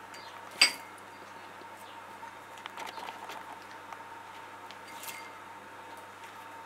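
Quiet room tone with a faint steady hum. One sharp click just over half a second in, then a few faint ticks and light rustles from hand handling.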